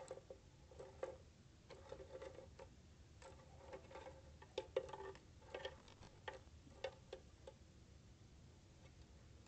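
Faint, irregular clicking and tapping of dry twigs knocking against each other and the wooden nest tray as a greater roadrunner arranges nest sticks with its bill; the taps come in quick clusters and stop about three quarters of the way through.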